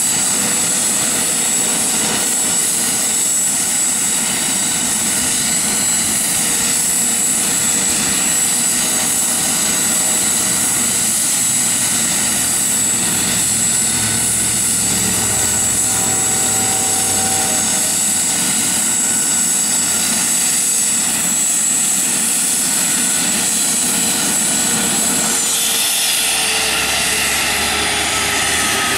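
Eurocopter AS365 Dauphin air-ambulance helicopter idling on the ground with its rotors turning: a steady high turbine whine over heavy rotor and engine noise. About 25 seconds in, the turbine whine starts to fall in pitch.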